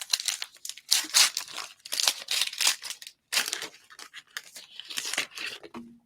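A trading card pack's wrapper being torn open and crinkled by hand, in a series of irregular tearing and rustling bursts.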